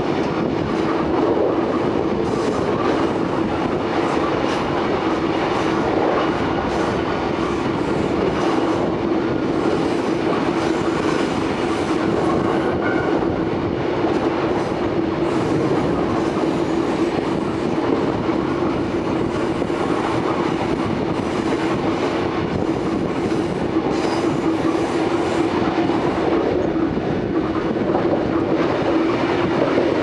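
A Takamatsu-Kotohira Electric Railroad vintage electric train (class 5000 No. 500 with class 1000 No. 120) running at a steady speed, heard from the front of the car. The wheels clatter over the track with scattered clicks over a steady hum.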